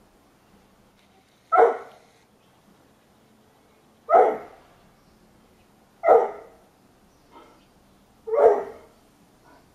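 A terrier barking four single barks about two seconds apart. They are demand barks aimed at another dog to get its chicken.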